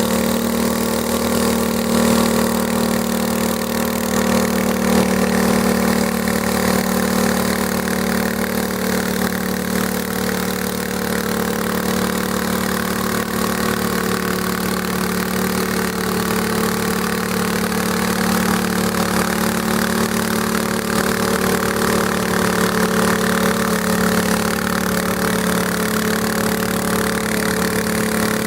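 Garden tractor engine running steadily, its pitch dipping slightly midway through and coming back up toward the end.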